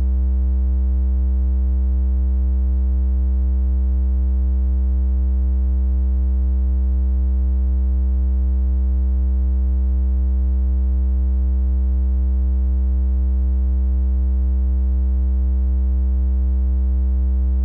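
A synthesized 64 Hz triangle-wave tone, a steady low hum with faint overtones above it, held at one pitch and level without change.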